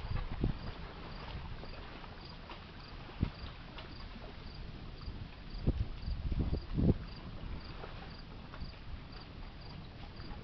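Insect chirping steadily, about two short high chirps a second. A few low thumps on the microphone stand out, the loudest about seven seconds in.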